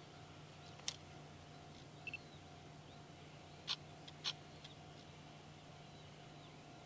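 Quiet outdoor ambience with a steady faint hum and a few short, sharp bird chirps; the two loudest come about half a second apart near the middle.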